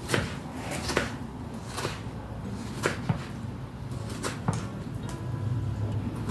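Kitchen knife chopping through tomato onto a cutting board: separate, uneven strokes about once a second, two of them coming in quick pairs.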